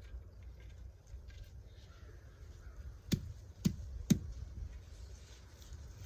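Small high-carbon-steel 4PATRIOTS Ready Shovel, mounted on a long stick handle, jabbed into leaf-covered dirt three times about half a second apart, each a sharp knock.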